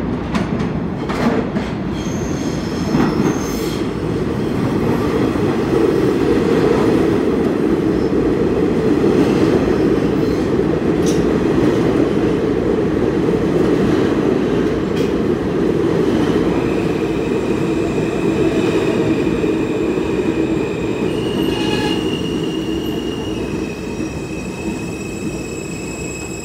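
R160A subway train arriving and braking into a station: a heavy wheel-and-motor rumble swells as the cars come in, with a few clacks early on. About two-thirds of the way through, steady high-pitched squealing sets in as the train slows, and the rumble fades toward the end.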